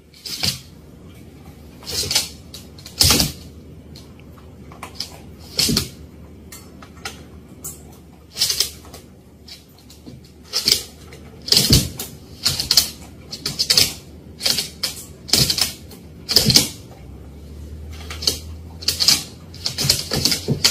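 Irregular sharp taps and clicks from a corgi and a German shepherd moving and playing on a hardwood floor: the paws and claws click on the boards. The taps are sparse at first and come faster in the second half, about one to two a second.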